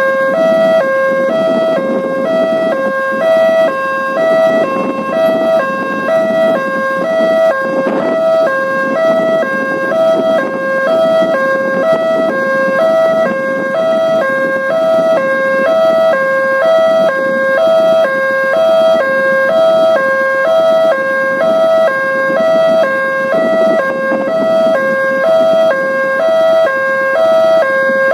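Indonesian railway level-crossing warning alarm sounding continuously: a fast electronic two-tone alarm alternating evenly between two pitches, signalling that the barrier is down for an approaching train.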